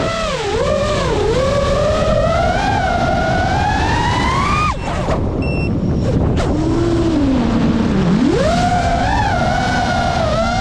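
FPV quadcopter's brushless motors whining, their pitch rising and falling with the throttle through flips and rolls, over a rush of propeller noise. About five seconds in the throttle drops off briefly, then the motors spool back up from a low pitch that dips and swings sharply up into a steady high whine.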